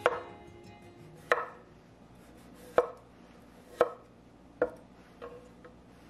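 Chef's knife chopping through small potatoes onto a wooden cutting board: about six sharp knocks roughly a second apart, the last one fainter.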